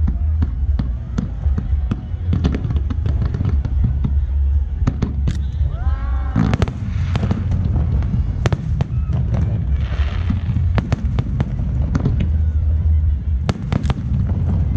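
Aerial fireworks shells bursting in quick succession: many sharp bangs and crackles over a constant low rumble.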